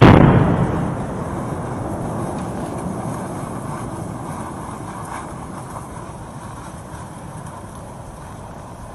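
An explosion: one sudden loud boom, then a deep rumble that fades slowly over the following seconds, standing for the bang of a volcanic eruption.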